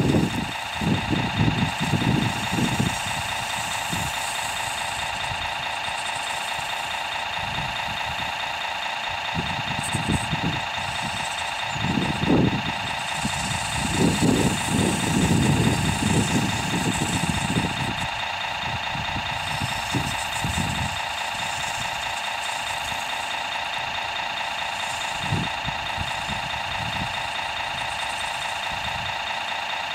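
Radio-controlled model construction vehicle's engine sound, a steady idle that holds one pitch throughout. Irregular low gusts of wind hit the microphone, strongest around the middle.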